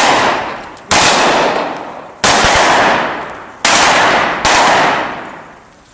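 Five single gunshots at irregular intervals of about a second, each ringing out with a long fading echo.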